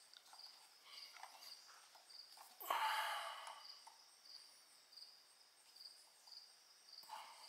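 Faint rubbing and handling noises of a rubber hose being worked onto an engine fitting, with one louder scrape about three seconds in. A faint high chirp repeats nearly twice a second in the background.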